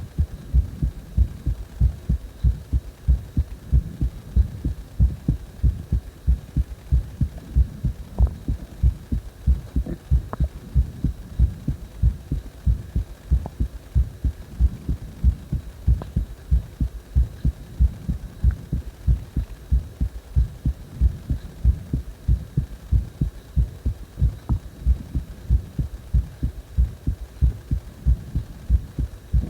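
A heart beating in a steady, regular lub-dub rhythm of low thumps, with breathing sounds strong underneath.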